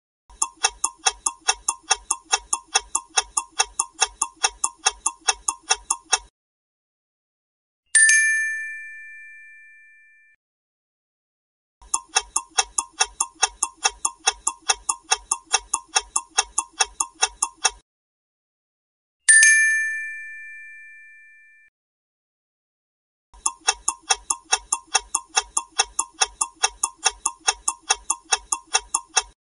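Quiz countdown-timer sound effect: clock-like ticking at about four ticks a second, running for about six seconds each time. Twice, a single bell ding follows and rings out, marking the answer reveal, and the ticking starts again for the next flag.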